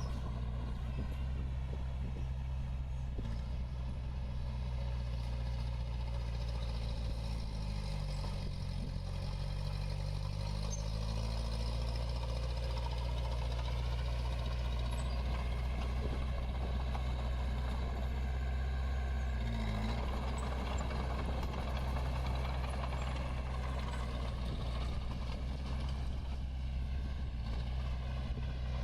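Diesel engine of a small Komatsu D21 bulldozer running steadily. Its note dips and climbs back about a third of the way in, and drops briefly and recovers about two-thirds of the way through.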